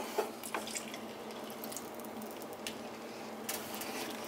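Milk being poured into a pan of cooked roux and stirred with a wooden spoon, with a couple of light knocks near the start.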